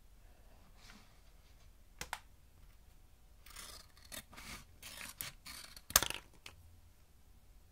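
Scissors cutting through a thin clear plastic mould tray: a run of snips through the plastic, ending in a sharp snap about six seconds in.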